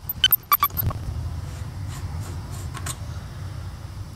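Metal parts and tools clinking together: several sharp ringing clinks in the first second, then a few fainter ticks, over a steady low hum.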